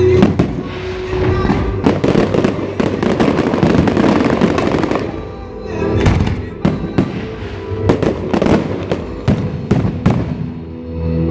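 Aerial firework shells bursting in a barrage. First comes a dense run of overlapping bangs and crackle, then a short lull, then a string of separate bangs about two-thirds of the way in, with music playing underneath.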